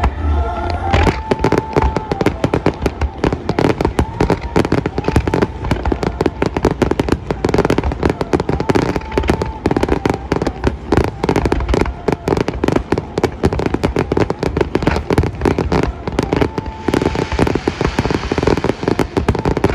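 Fireworks display: a rapid, dense barrage of many shells bursting and crackling, starting about a second in and easing off near the end.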